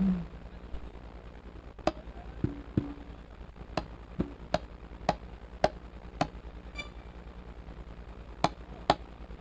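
Sparse single mallet strikes on saron keys during a sound check, about a dozen sharp hits at uneven intervals, a few with a short low ring, over a faint steady hum from the sound system.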